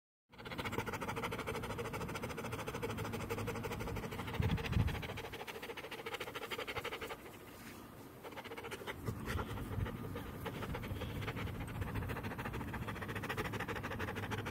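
Dog panting steadily, with a dull low thump about four and a half seconds in.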